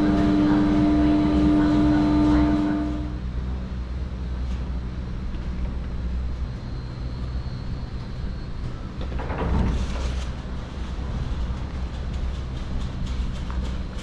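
Garaventa six-seat chairlift running with a steady low mechanical rumble. A pitched hum stops about three seconds in, a brief rush of noise comes near ten seconds, and light clicks follow toward the end.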